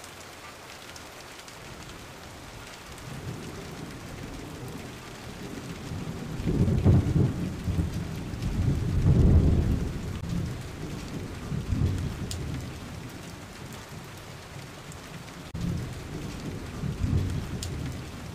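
Steady rain with muddy floodwater running across a paved road. Irregular low rumbles come and go over it, loudest about 7 and 9 seconds in.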